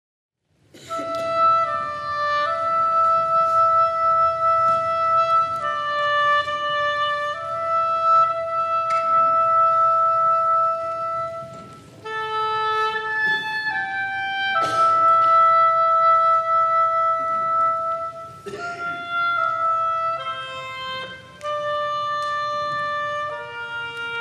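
A slow solo melody on a woodwind instrument, long held notes moving stepwise, starting about a second in.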